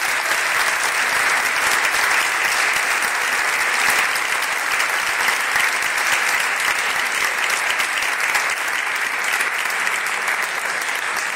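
Audience applauding: many hands clapping, held steady for the whole stretch.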